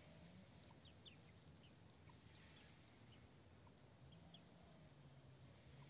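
Near silence: faint background ambience with a few brief, faint high chirps and a faint low hum that comes and goes.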